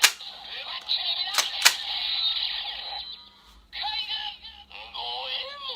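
Kamen Rider Ghost transformation belt toy playing its electronic sound effects through its small speaker: a sung, chanting standby tune and voice. There are sharp clicks at the start and twice about a second and a half in, as the belt is worked.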